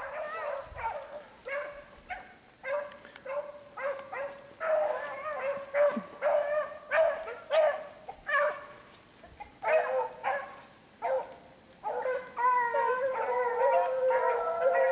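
15-inch male beagles baying as they run a rabbit's scent line. Short repeated bays come one after another for the first twelve seconds, then several hounds' voices overlap into a continuous chorus near the end.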